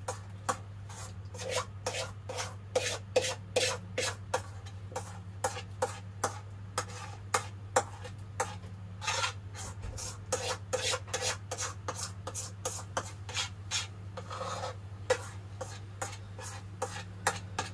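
A spoon scraping around the inside of a stainless steel mixing bowl in quick, irregular strokes, about two or three a second, as food is scraped out of the bowl into a pot. A steady low hum runs underneath.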